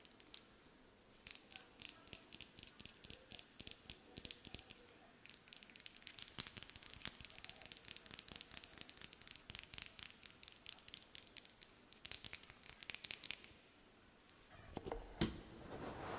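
ASMR trigger sounds close to the microphone: rapid crisp tapping, joined about five seconds in by a steady hissing brush or scratch. Near the end the tapping stops, and a softer rustle with one thump follows.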